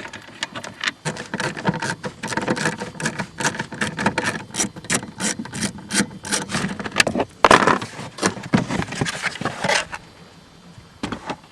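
1/4-inch ratchet clicking rapidly as it backs out 7mm screws, with one louder knock about seven and a half seconds in. The clicking stops about ten seconds in.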